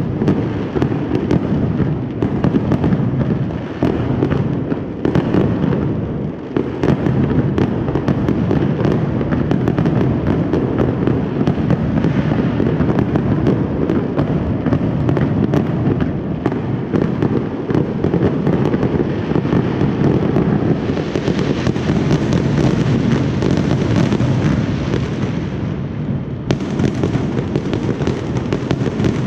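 Fireworks display: a dense, unbroken barrage of shell bursts and crackling, one bang running into the next.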